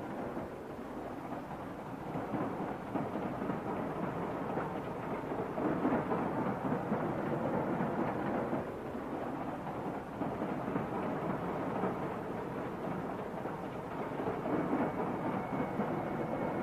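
Steady rumble and rattle of a moving passenger train heard from inside the carriage, swelling and easing at times.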